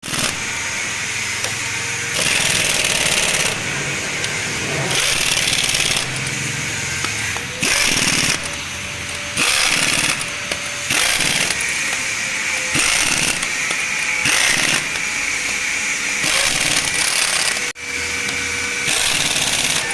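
A power tool running in repeated bursts of one to two seconds each, with a strong hiss.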